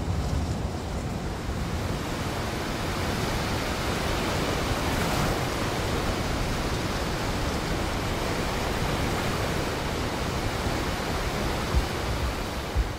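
Sea surf washing and breaking in a steady rushing hiss, with two short low thumps near the end.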